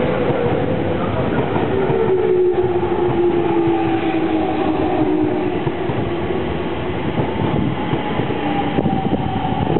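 E231 series 800 commuter train arriving and braking: the traction motors' whine slowly falls in pitch as it slows, over a steady rumble and clatter of wheels on rail.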